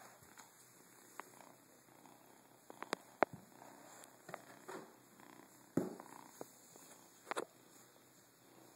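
A kitten purring softly while being stroked, with a few sharp knocks and bumps, the loudest about three seconds in and two more later on.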